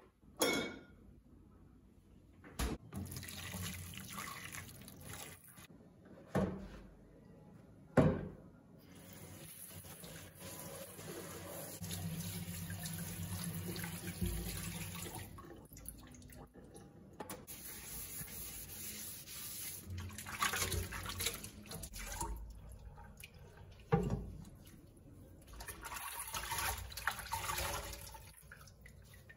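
Kitchen tap running into a sink in several spells, with a few sharp knocks in between, the loudest about eight seconds in and again near twenty-four seconds.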